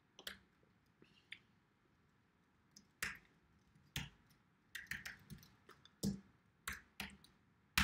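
Computer keyboard typing: slow, uneven single keystrokes, about fifteen clicks with short pauses between them, the loudest one near the end.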